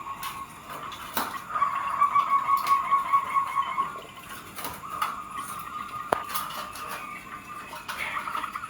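Zebra doves (perkutut) cooing in phrases of rapid, trilled notes at a steady pitch, one phrase following another. There is a sharp click about a second in and another about six seconds in.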